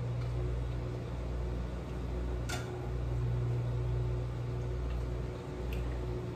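Steady low mechanical hum of a kitchen appliance running. About two and a half seconds in and again near the end there is a brief clink as hot pepper brine is ladled into glass canning jars.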